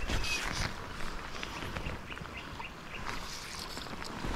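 Shallow river water running and lapping around a wading angler, louder at first and easing off, with a few faint short high chirps about halfway through.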